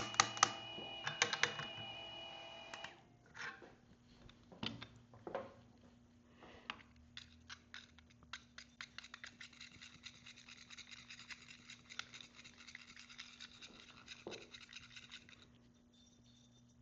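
A motor running with a steady whine, stopping about three seconds in, typical of the Monolith's 98 mm flat-burr grinder finishing. A few knocks follow, then a long run of rapid light scratching and clicking as the fresh coffee grounds are worked by hand.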